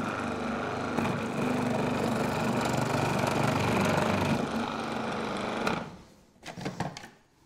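Sage Kitchen WizzPro 2.7 L food processor running with its adjustable slicing disc as courgettes are pushed through, a steady motor hum that stops suddenly about six seconds in. A few light knocks follow.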